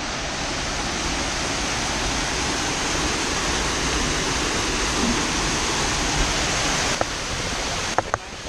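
Steady rushing of falling water from a waterfall that pours into the sea. The sound shifts abruptly about seven seconds in, with two sharp clicks near the end.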